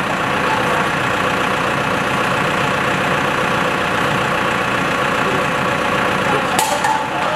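Large Heli diesel forklift's engine running steadily at idle, with one sharp metallic clank about six and a half seconds in.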